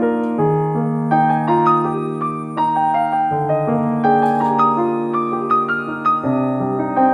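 Background piano music: a gentle melody over held bass notes.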